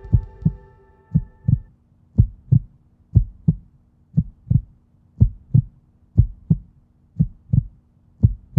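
Heartbeat sound effect: a steady double thump, lub-dub, about once a second. A held musical chord fades out in the first second and a half.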